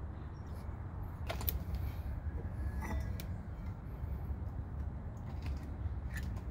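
New rear brake pads and caliper of a Jeep Grand Cherokee ZJ disc brake being fitted by hand: a few light metallic clicks and scrapes as pad and caliper seat against the bracket, clearest about a second and a half in and around three seconds, over a steady low rumble.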